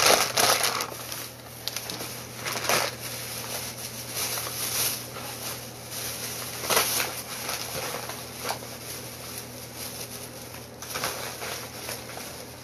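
A thin plastic takeout bag rustling and crinkling in irregular bursts as it is handled, loudest in the first second.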